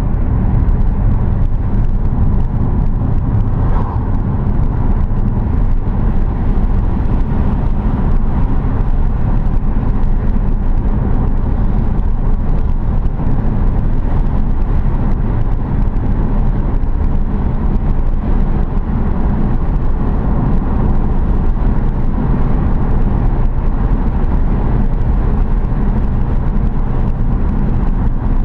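A car driving steadily along the road, with a continuous low rumble of engine and road noise.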